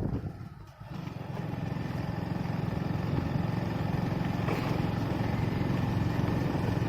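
A vehicle engine running steadily, with a low hum that dips briefly under a second in, then builds and holds.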